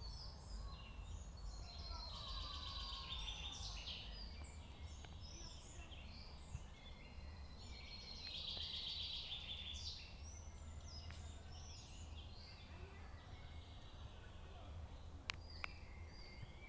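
Several small songbirds singing and chirping, with two longer trilling phrases, over a steady low rumble. A couple of sharp clicks near the end.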